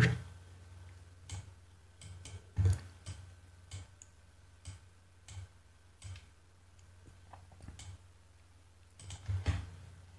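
Computer mouse clicks, about a dozen short sharp ones spaced irregularly with a small cluster near the end, over a faint steady low hum.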